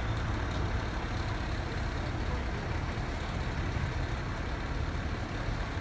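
Fire engine's diesel engine idling: a steady low rumble with no changes in pace.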